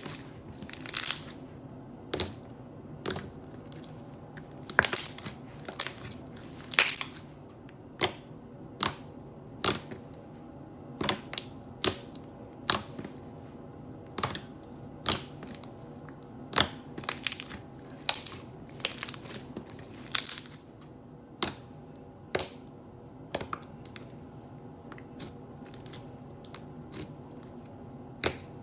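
Thick slime being squeezed and pressed, letting out sharp bubble pops over and over, roughly once a second and sometimes two close together.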